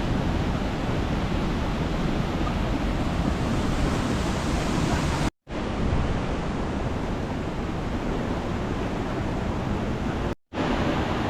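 Steady rush of a fast-flowing mountain river and waterfall, broken twice by brief total silences, about five and ten seconds in.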